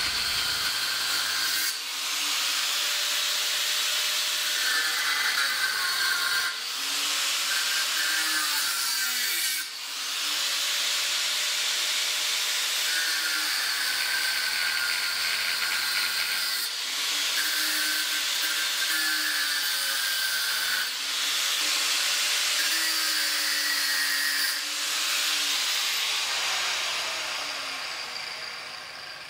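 Angle grinder with a cut-off disc cutting into a steel water pipe clamped in a vise, a loud, steady high hiss of the disc on metal. It winds down and fades near the end.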